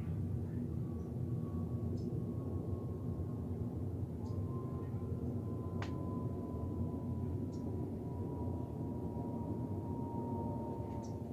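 Airplane passing overhead: a steady low rumble with a single faint whine that slowly falls in pitch.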